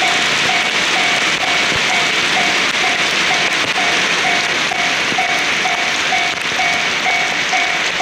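Japanese level-crossing warning bell dinging steadily about twice a second, signalling an approaching train, over the hiss of torrential rain.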